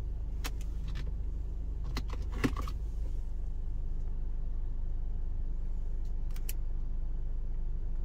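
Car engine idling, heard as a steady low hum from inside the cabin, with a few light clicks scattered through it.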